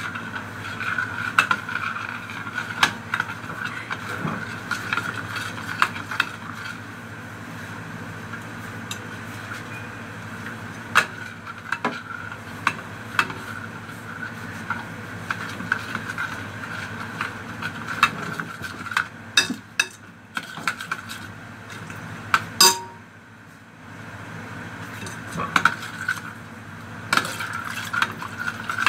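A metal spoon beating a wet mixture in a plastic bowl, with irregular clicks and taps of the spoon against the bowl over a steady background hum.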